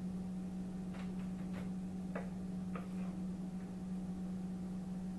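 A steady low hum with a handful of faint, light taps and clicks from kitchen work, spread over the first few seconds.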